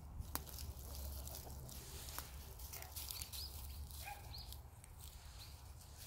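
Footsteps crunching and rustling on dry fallen leaves, in scattered short crackles, over a low rumble of wind on the microphone.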